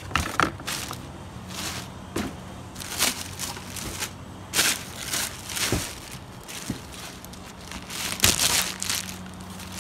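Plastic packaging wrap crinkling and rustling in irregular bursts as parts are handled inside a cardboard box, loudest about 8 seconds in.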